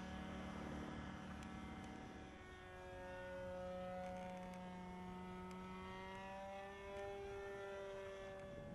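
Radio-controlled P-51 Mustang model's small two-stroke glow engine and propeller running hard during takeoff and climb-out, a steady buzzing drone whose pitch glides down and back up as the model flies past.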